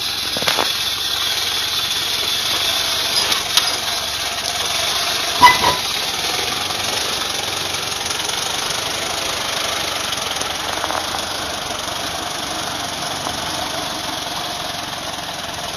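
Toyota Land Cruiser BJ40's diesel engine running steadily at low revs as it crawls off-road, with a few sharp knocks, the loudest about five and a half seconds in.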